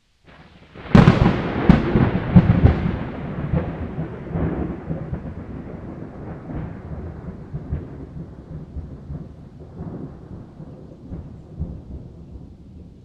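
A loud thunderclap: a sharp crack about a second in and several more over the next two seconds, then a long rumble that slowly fades away.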